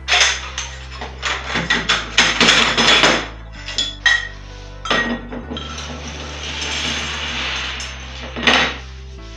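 Lengths of slotted aluminium extrusion clanking and rattling against each other as a bundle is handled and the pieces are set down on a wooden table: a quick run of clanks in the first three seconds, a few single knocks, and a couple of seconds of steady rustling noise past the middle. Quiet background music with low held notes plays underneath.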